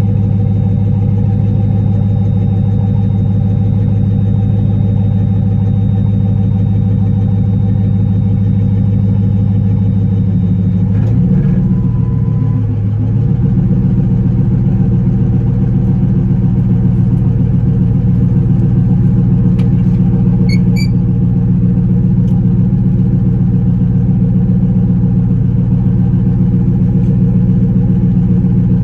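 A vehicle engine running with a steady low drone. Its note shifts briefly about eleven seconds in, then settles again.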